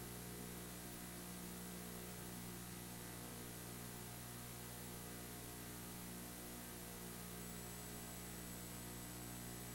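Steady electrical mains hum with a faint hiss underneath, on an old Betamax recording of a TV broadcast while the programme sound is silent.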